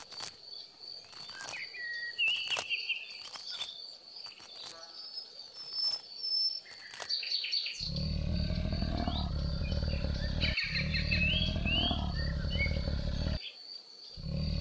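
Birds chirping over a steady high insect whine, with scattered clicks. About eight seconds in, a loud, deep, rumbling animal growl starts. It runs in long stretches of a few seconds and cuts off abruptly twice before resuming.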